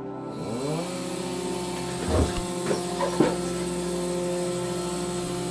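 Vacuum pump switched on, its motor winding up in pitch over about a second and settling into a steady hum with a hiss of air, drawing down the vacuum table. Three short knocks come about two to three seconds in as the wooden blank is pressed and shifted on the table.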